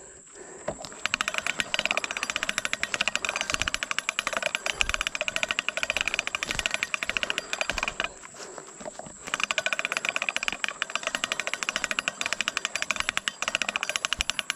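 Insects buzzing in a loud, rapid pulsing rattle with a steady high whine above it, breaking off briefly at the start and again about eight seconds in.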